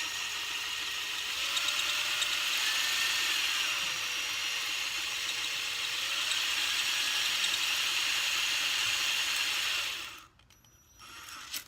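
Spring-loaded three-stone hone grinding in a steel shift fork bore with cutting fluid: a steady hiss of stone on metal that takes the scars out a little at a time. It stops suddenly about ten seconds in.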